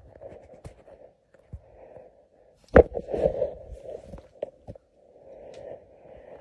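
Close-range scuffle with a cat: repeated knocks and rubbing against the phone, the loudest a sharp thump about three seconds in, between short breathy bursts of noise.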